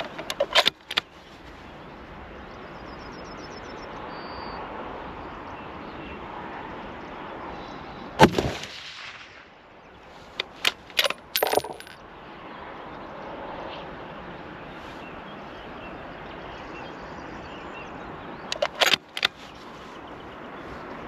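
A single shot from a Tikka T3X TACT A1 bolt-action rifle in .308, about eight seconds in and the loudest sound. A few seconds later comes a quick series of sharp metallic clicks and clacks as the bolt is worked, with similar short clusters of clicks near the start and about nineteen seconds in, over a steady hiss.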